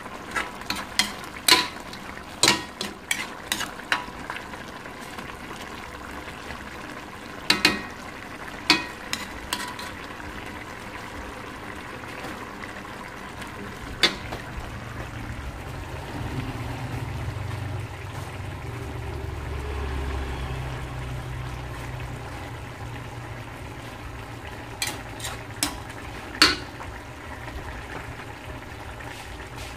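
A metal spoon stirring in a stainless steel wok, clinking sharply against the pan many times in the first ten seconds and again a few times near the end, over the steady bubbling of a coconut-milk stew simmering.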